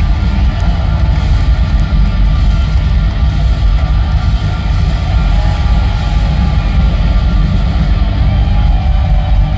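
Live hard-rock band playing loud through a concert PA, with electric guitars, bass and drums and a heavy bass end.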